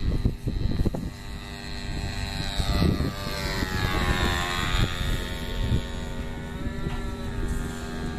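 A radio-controlled P-51 Mustang model's OS engine and propeller buzz steadily as the plane flies a low pass overhead. The engine note swells and sweeps down and back up in pitch as the plane goes by, about three to five seconds in. Wind rumbles on the microphone.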